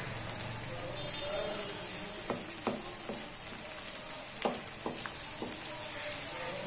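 Onion, garlic-ginger paste and softened tomatoes sizzling in oil in a non-stick wok, stirred with a wooden spatula that knocks and scrapes against the pan a few times in the middle of the stretch.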